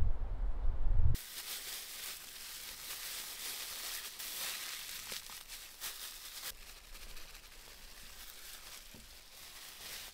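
A low rumble that cuts off about a second in, then a thin plastic bag crinkling and rustling in the hands as flour is squeezed out of it into a metal baking tin.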